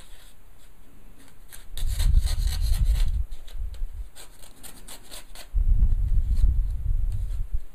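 Packaging being handled on a wooden table: two stretches of rubbing and scraping, each a second or two long, about two seconds in and again about five and a half seconds in.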